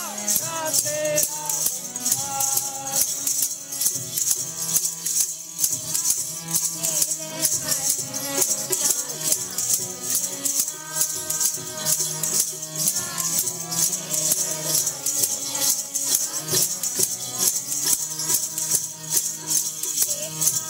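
Devotional Sikh kirtan music: voices singing over a fast, steady jingling rattle that keeps the beat.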